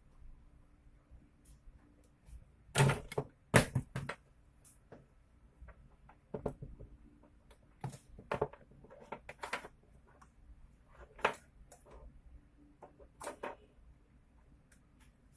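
Scattered clicks and knocks of hard parts and tools being handled while a Makita 6205D cordless drill is taken apart. The loudest two knocks come about three seconds in, and lighter clicks follow on and off.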